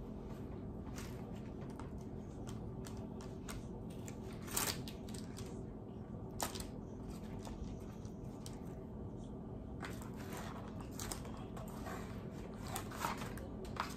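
Brown paper liner of a takeout wing box crinkling and rustling as hands sort through chicken wings, with a few sharp crackles, over a steady low hum.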